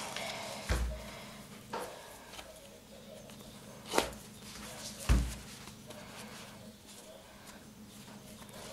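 A cloth-wrapped duck breast being handled and tied with string on a tabletop: a few dull knocks against the table, the loudest two about four and five seconds in, with faint rustling of cloth and string between.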